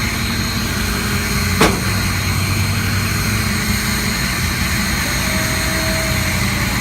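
Tow truck's engine running steadily while it powers the winch pulling a car up onto the bed. A single sharp knock comes about a second and a half in.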